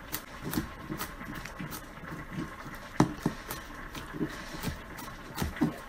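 Chef's knife chopping through minced garlic on a cutting board: a steady run of short knocks, about three to four a second, one sharper knock about halfway through.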